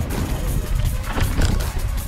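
Music over wind rumbling on the microphone and the steady clatter and rattle of a mountain bike rolling over a rough, leaf-covered dirt trail.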